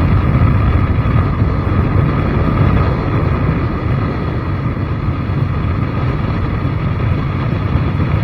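Steady, loud running noise of a vehicle being ridden, mixed with wind buffeting the microphone. It holds steady throughout, easing slightly about three seconds in.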